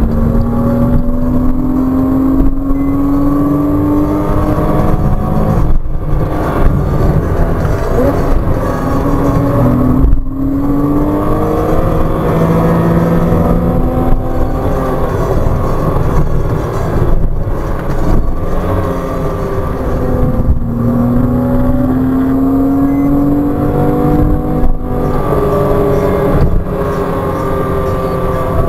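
Porsche Cayman 987.2's 2.9-litre flat-six, heard from inside the cabin, being driven hard in second and third gear. The engine note climbs in pitch several times under full acceleration, and each climb is cut off abruptly by a shift or a lift for braking.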